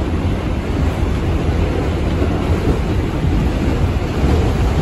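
R142 subway car running along the track, heard from inside the car: a steady, loud rumble of wheels on rail and running gear.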